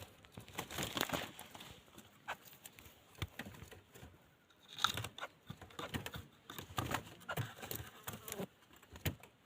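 Irregular rustling and crinkling with scattered sharp clicks, coming in several short spells.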